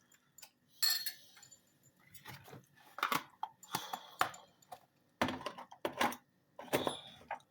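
A utensil scraping and clinking against a pan in irregular strokes as gochujang paste is stirred into hot oil.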